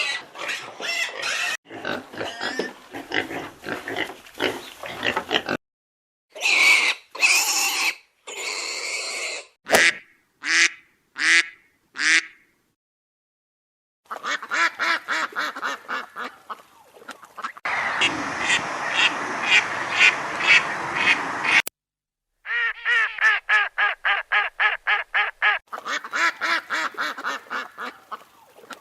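Ducks quacking in a string of separate recordings cut one after another. Some are single harsh quacks, some are dense bursts, and near the end comes a fast run of quacks several a second.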